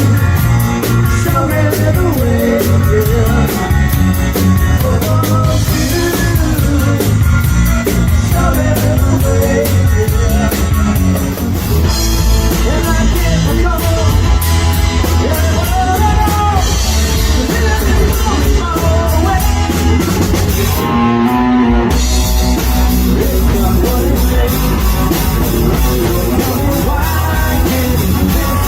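Rock music from a power trio: electric guitar, bass and drum kit playing, with singing over them.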